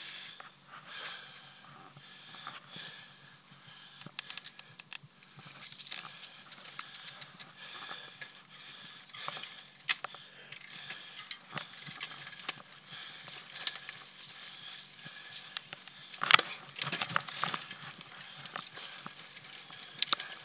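Mountain bike being ridden over a rough dirt trail: an uneven run of rattles, clicks and knocks from the bike jolting over bumps, with one hard knock about three-quarters of the way in followed by a burst of rattling.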